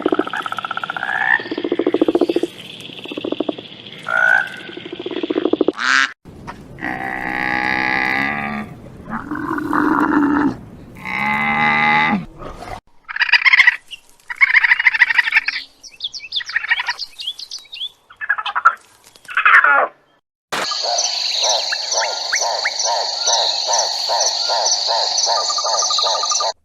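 A run of different animal calls cut one after another, with frogs croaking among them; near the end a steady, rhythmic pulsing chorus.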